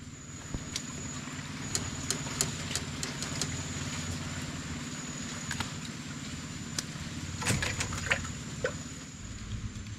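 An engine running steadily as a low hum, with scattered light clicks over it.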